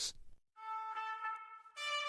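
Faint background music of long held notes, coming in about half a second in and moving to a new chord near the end.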